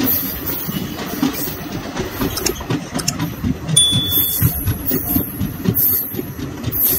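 Old ICF passenger coaches of the Okha–Rameswaram Express running on the track: a steady rumble of wheels and rails with irregular clicks and rattles.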